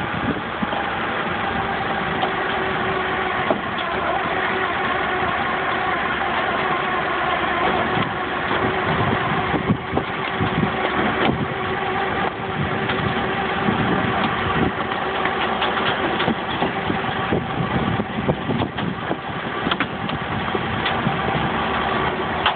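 A vehicle engine running steadily near idle, with scattered knocks and clicks over it, as a chain pulls an overturned car over onto its side.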